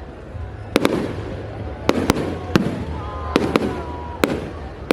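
Aerial fireworks display: about nine sharp bangs at irregular intervals, over a steady low rumble and crackle between the bursts.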